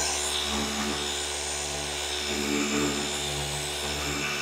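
Flex FX3331 24V cordless gear-driven orbital polisher running steadily, its pad buffing car paint.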